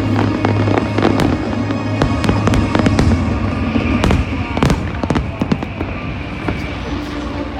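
Aerial fireworks bursting in a rapid string of sharp bangs and crackles that thin out after about six seconds, with music playing underneath.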